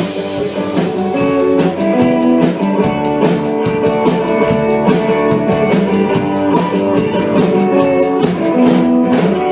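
A live rock band playing: a drum kit keeps a quick, steady beat under held guitar chords.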